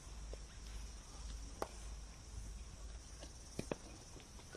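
Outdoor cricket-nets ambience with a few sharp knocks of a cricket ball on a bat: one about a second and a half in, then two close together near the end.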